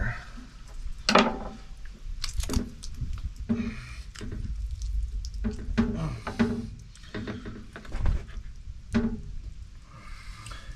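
A knife cutting through an armadillo's leg and thigh on a plastic cutting board: irregular short knocks and scrapes as the blade and the meat are handled.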